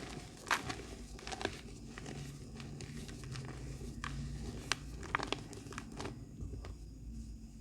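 Black glittery gym-chalk reforms being crushed and crumbled: soft crunching with scattered sharp crackles and snaps, growing sparser near the end.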